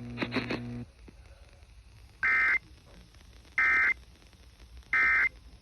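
Emergency Alert System end-of-message signal: three short, identical bursts of warbling SAME digital data tones, each under half a second and about a second and a half apart, marking the end of the alert. A brief low hum with a few clicks comes before the bursts, in the first second.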